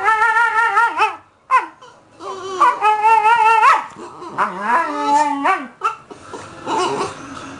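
Siberian husky "talking": several drawn-out, wavering howl-like whines with sliding pitch, each about a second long with short breaks between. It is the husky's vocal invitation to play tug.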